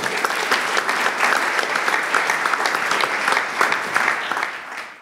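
Audience applauding: many hands clapping, rising quickly at the start, holding steady, then thinning out near the end before the sound cuts off abruptly.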